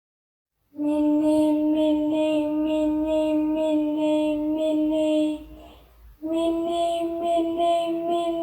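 A high voice chanting "mini mini" over and over on one steady pitch, in two long runs. The first run stops about five and a half seconds in, and the second starts just after six seconds, a little higher.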